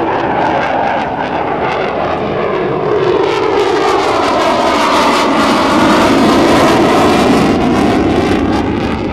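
F-16 Fighting Falcon's single jet engine during a close banking pass: loud, steady jet noise that builds to its loudest about six to eight seconds in, with a sweeping, phasing change in tone as the jet goes by, and it begins to fade at the very end.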